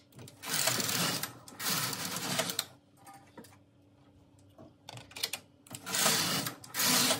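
Carriage of a Silver Reed SK840 double-bed knitting machine with SRP60N ribber sliding across the needle beds to knit rows of jacquard: two long passes in the first few seconds, then another near the end after a pause.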